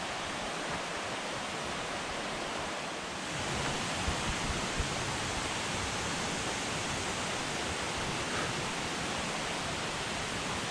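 Steady rushing hiss outdoors. From about three seconds in, footsteps on a dirt trail add soft low thuds as walking begins.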